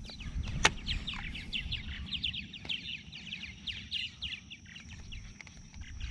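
Small birds chirping in a fast, continuous run of short down-slurred notes, over a low rumble, with one sharp click about half a second in.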